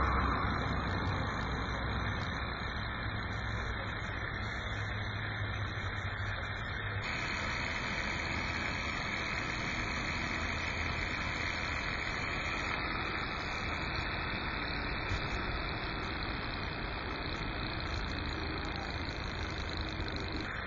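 Small solar-heated Stirling engine running steadily, its flywheels spinning.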